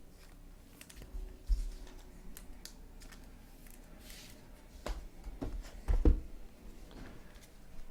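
Trading cards and packs being handled on a table: scattered soft clicks, slides and rustles, with a few louder knocks about five to six seconds in.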